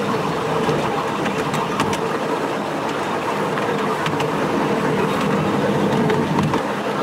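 A 7.25-inch gauge miniature steam train running along its track, heard from the passenger car: a steady rumble and rattle of wheels on rails, with scattered sharp clicks.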